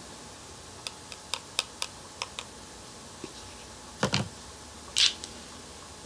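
Makeup tools being handled: a quick run of light plastic clicks and taps, then a louder knock about four seconds in and a short swish about a second later.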